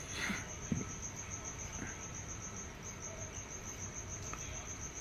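A cricket trilling, a steady high pulsing tone that drops out briefly near the middle. There is a short rustle and a light knock in the first second.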